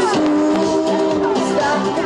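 A woman singing a Czech pop song into a handheld microphone over backing music, amplified through a PA. She holds one long, slightly wavering note before moving on to the next phrase.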